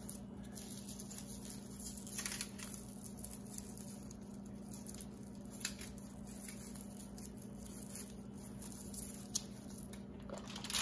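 Faint rustling and light crinkling as hands tie lemongrass leaves around a whole fish on aluminium foil, with a few soft clicks, over a steady low hum.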